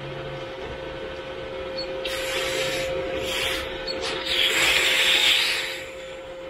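A freshly welded, still-hot piece of steel held in pliers and quenched in a cup of water, hissing and sizzling in two bursts, about two and four seconds in, the second louder and longer.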